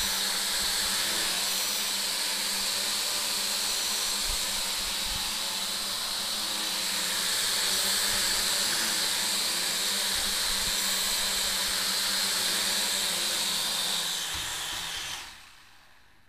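SY X25 toy quadcopter's four propellers and motors running steadily as it hovers, a high whirring hiss over a low hum. About fifteen seconds in it lands and the motors cut off.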